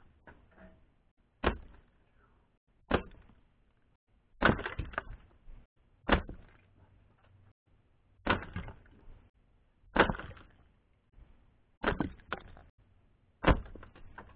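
Air gun pellets hitting a wooden target stand and toys: about nine sharp cracks, one every one and a half to two seconds, each with a short clatter of splintering wood and falling debris. Two hits come almost together about twelve seconds in.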